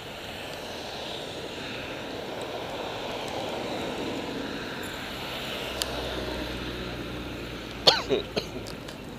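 Outdoor crowd and street noise with a low engine hum joining a little past halfway. A close, sudden cough-like burst of two or three quick strokes comes about a second before the end and is the loudest sound.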